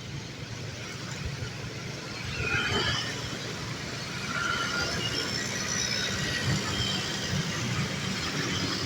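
Road traffic running past, a steady low engine rumble with a few brief, faint high-pitched squeals.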